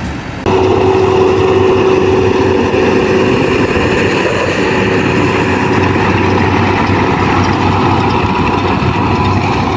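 Tractor engine running steadily under load while pulling a Pöttinger Europrofi loader wagon that picks up cut grass, a continuous drone with a constant whine. It starts abruptly about half a second in.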